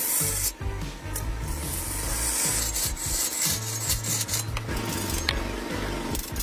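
Wood-turning tool scraping and cutting into a large log spinning on a lathe: a continuous rough rasping hiss.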